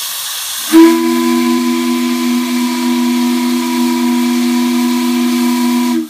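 The Chesapeake & Ohio shop whistle from Clifton Forge, Virginia, blown on live steam. Steam hisses, then about a second in the whistle opens into a loud, steady low chord, held until it cuts off sharply near the end.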